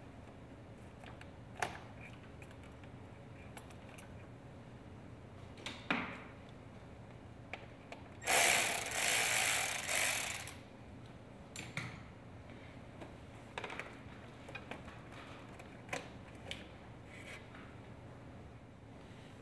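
A hand ratchet clicking rapidly for about two seconds near the middle, loosening a fastener during engine disassembly. Around it are a few light clicks and knocks of parts being handled.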